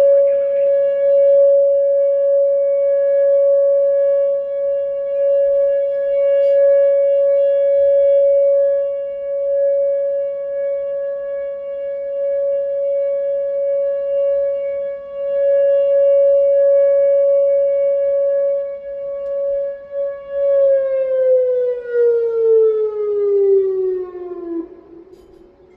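Whelen WPS-2910 electronic outdoor warning siren sounding its steady alert tone for a tornado warning, its level rising and falling. About 20 seconds in, the tone winds down, falling steadily in pitch for several seconds until it cuts off near the end.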